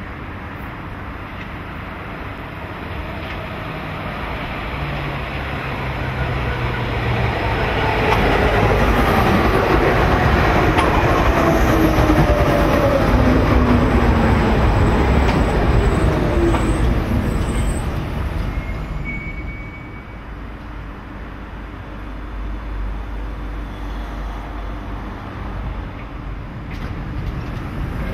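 Hamburg U-Bahn DT2 electric train rolling into the station: the rumble of wheels on rail builds to a loud pass, with the traction motors' whine falling in pitch as the train slows. Near the end it drops back to a quieter, steady rumble.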